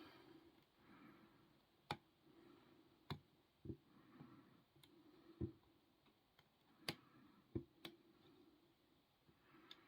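Faint, irregular metallic clicks and light scraping from a lock pick and tension wrench working the pins of a 60mm padlock during picking.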